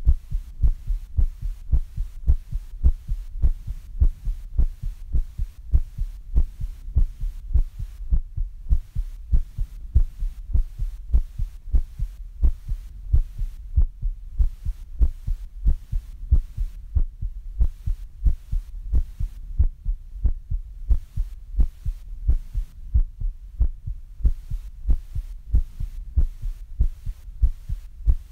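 Human heartbeat, a steady, even rhythm of low thuds over a low hum, as the heart recovers after exercise.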